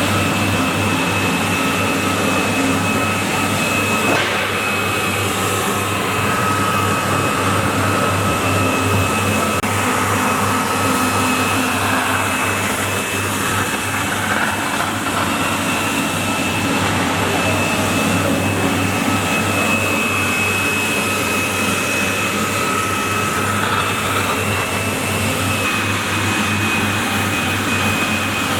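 Walk-behind floor scrubber-dryer running steadily: a loud, even motor noise like a vacuum cleaner, with a low hum and a thin high whine from the suction motor.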